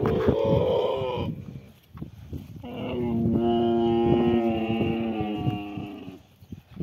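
Dromedary camel calling while being milked: a short wavering moan, then after a pause a longer, steadier and lower moan of about three and a half seconds.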